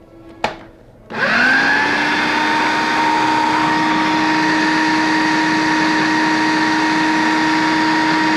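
Food processor motor switched on about a second in, spinning up quickly to a steady whine as it purées the soft roasted squash, apple and onion mixture. A short knock comes just before it starts.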